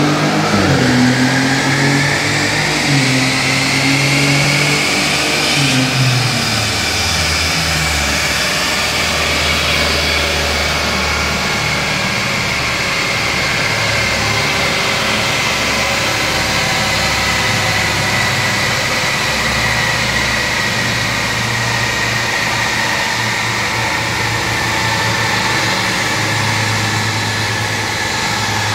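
A car engine running, revved for the first few seconds and then held steadier. A high whine rises for about five seconds and then slowly sinks.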